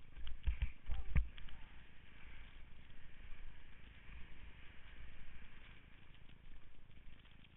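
Skis sliding over snow, heard from a head-mounted camera as a steady rushing noise with a low rumble. A cluster of sharp knocks comes in the first second or so.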